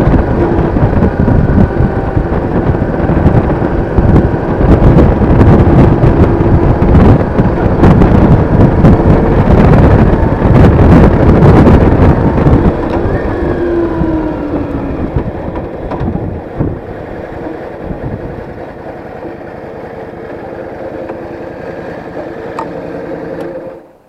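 Yamaha DragStar Classic V-twin cruiser engine running at road speed, heavily mixed with wind rush and buffeting on the action camera's microphone. About halfway through the engine note falls as the bike slows, and it settles into a quieter, steady running sound as the motorcycle comes to a stop.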